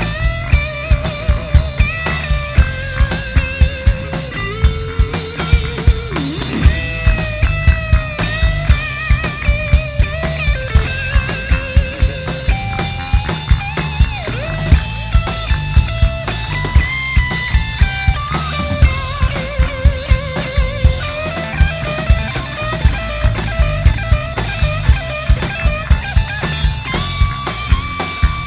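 A live rock band playing an instrumental passage. A drum kit keeps a steady, even beat under bass and guitar, while a lead melody line with vibrato wanders over the top.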